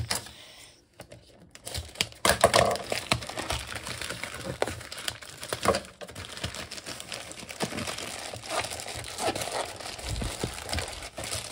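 Shipping packaging crinkling and rustling as a package is opened by hand, starting about two seconds in after a brief quiet moment, with scattered sharp taps and clicks.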